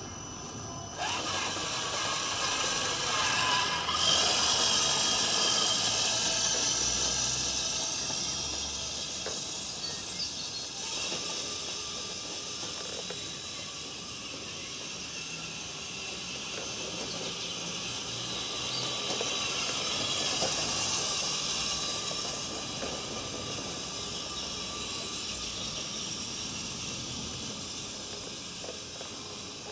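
Motor and drivetrain of a 1/6-scale radio-controlled Kübelwagen model whirring as it drives over a lawn, a steady hissing whir that grows louder about a second in, then fades and swells as the car moves.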